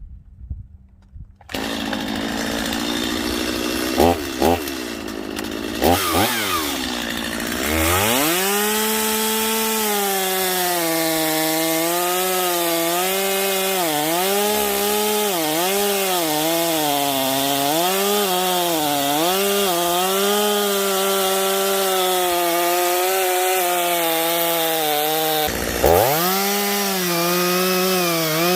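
Gas chainsaw cutting through a felled tree trunk. It revs up to full throttle about a quarter of the way in, then its engine pitch wavers as it bogs and recovers under load in the cut. Near the end the pitch dips sharply and climbs back.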